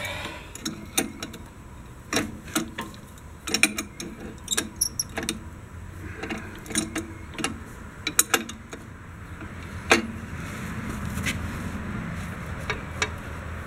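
Steel wrenches clinking and knocking against bolts and brackets in irregular taps while tight bolts on a tractor's mower belt tightener are worked loose. There is a sharper knock about ten seconds in, followed by a few seconds of softer scraping.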